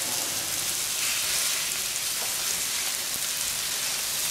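Meat frying in a hot pan: a steady sizzling hiss.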